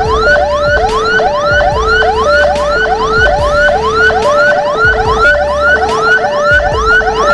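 Emergency sirens on an ambulance escort: a rapid rising whoop repeating about twice a second, layered over a two-tone hi-lo siren that switches tone about every half second. A low rumble comes and goes underneath.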